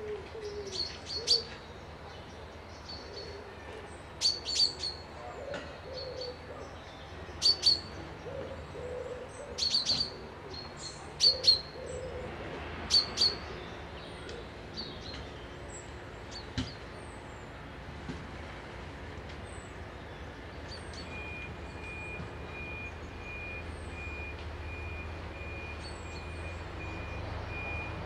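Wild birds singing: sharp high chirps and whistles in quick clusters, with lower repeated notes in the first half and sparser high notes later. From about three-quarters of the way through, an evenly spaced run of short high pips joins in.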